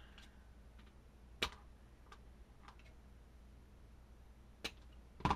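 Small craft pieces being handled and set down on a work table: three short sharp clicks, the last and loudest near the end, over a quiet steady low hum.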